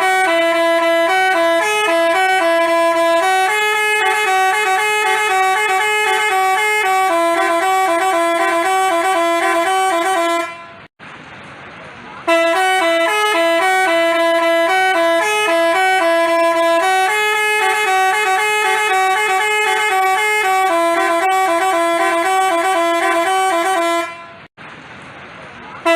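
Telolet basuri multi-tone bus horn playing a melody of held, stepped notes. The tune cuts off about ten and a half seconds in, starts over a second and a half later, and plays the same again until it stops near the end.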